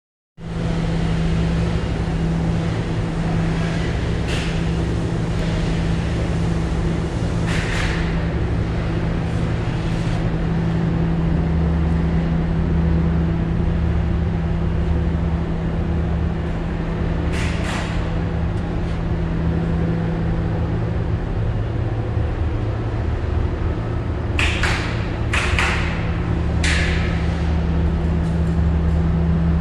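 A steady low hum with a deeper rumble beneath it, from running machinery beside a chiller control panel. A few brief rustles and knocks are heard over it, several close together near the end.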